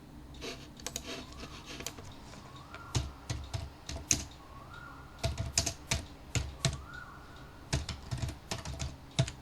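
Computer keyboard typing: irregular keystrokes, light at first and heavier and quicker from about three seconds in, over a low steady hum and a faint short rising tone that recurs every couple of seconds.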